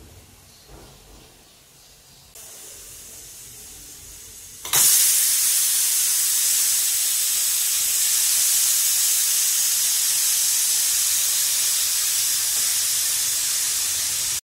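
Steam hissing out of an aluminium pressure cooker's vent as its whistle weight is lifted with a spoon to release the pressure. The hiss is faint at first, becomes a loud, steady rush of steam about five seconds in, and cuts off abruptly near the end.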